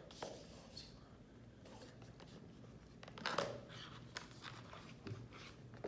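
Faint rustling and scraping of a cardboard phone box handled and opened by hand, with a louder rustle about three seconds in.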